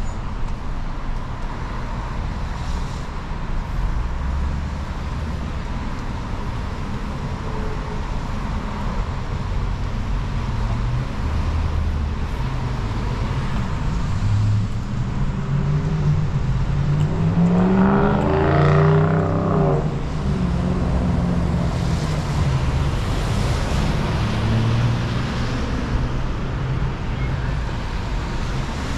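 City street traffic on wet pavement: a steady rumble of passing cars and tyres. About two thirds of the way through, a vehicle passes close by, its engine note rising and then dropping, which is the loudest moment.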